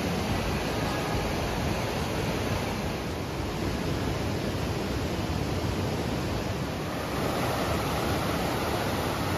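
River water rushing over rocks, a steady noise that grows louder about seven seconds in.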